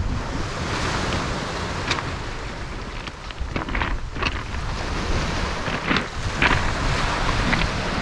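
Wind buffeting the microphone over small waves washing on a pebble beach, with a few short crunches of footsteps on the stones.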